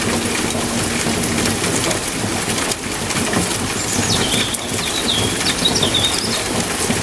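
Steady rain falling, a dense even patter. A few short high chirps, like a small bird calling, come about four to six seconds in, and a held low musical note fades out in the first second or two.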